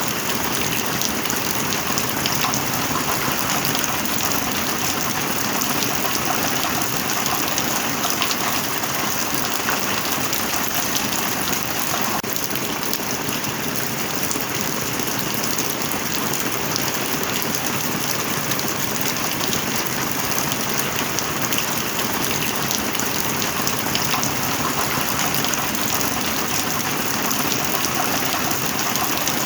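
Heavy rain falling steadily: a dense, even hiss with countless small drop ticks and no thunder.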